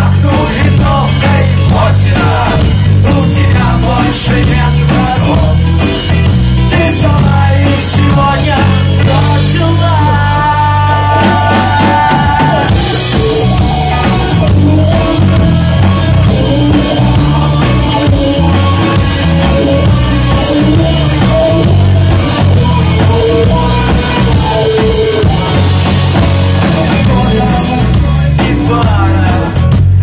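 Live rock band playing loud, with drum kit, bass and singing. About ten seconds in, one pitched note is held for about two seconds.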